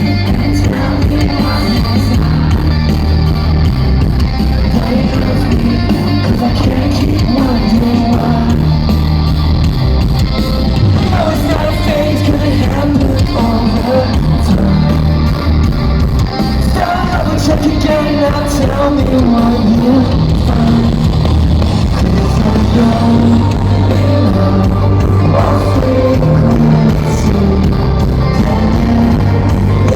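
Live rock band playing with a singer, loud and heavily distorted as recorded from the crowd in a large concert hall: heavy bass and drums under a sung melody.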